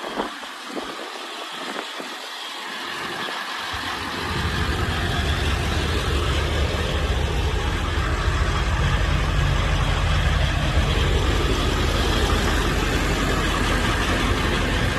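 1998 Ford E-350 box truck's gasoline engine idling steadily, building in about four seconds in after a few clicks and knocks.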